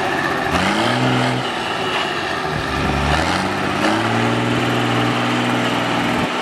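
Off-road 4x4's engine revving hard in repeated bursts, its pitch climbing about half a second in, again near three and four seconds in, then held high and steady.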